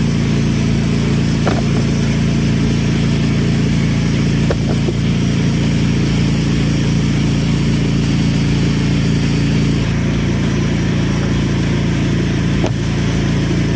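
Portable sawmill's small gasoline engine running steadily, a constant low drone with a few faint clicks.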